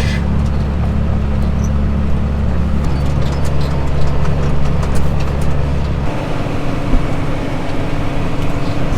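An engine or machine running steadily with a deep hum. About six seconds in, the lowest part of the hum drops away and a slightly higher steady tone takes over.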